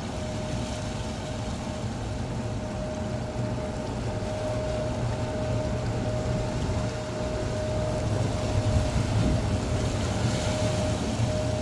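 A boat's engine running steadily, with a constant hum and a rush of wind and water. It grows a little louder in the second half.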